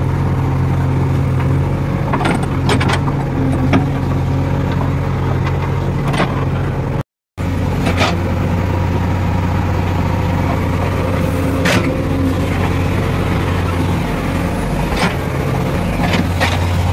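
JCB 3DX Eco backhoe loader's diesel engine running steadily while it works, with occasional short knocks from the machine. The sound cuts out for a moment about seven seconds in.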